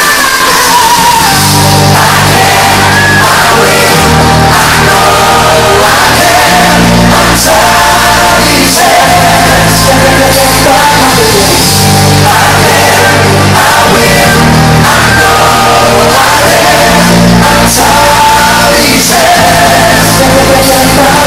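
Live pop performance by a male vocal group: several singers over drums, bass and keyboards, with the crowd shouting along, heard loud from among the audience in a large hall. The bass and drums come in about a second and a half in.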